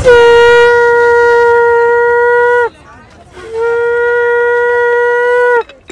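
A conch shell (shankh) blown in two long, steady, loud blasts of about two and a half seconds each, with a short breath between them. It is being test-blown at the stall to find one that sounds well.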